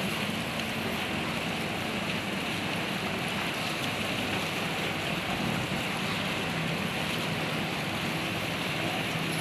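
Steady rushing noise of the sea, with a faint low hum underneath.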